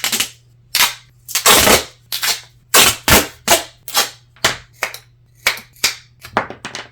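Duct tape being pulled off the roll and torn in quick, irregular rips, a dozen or so short crackling strips with a few longer pulls. A faint steady hum sits underneath.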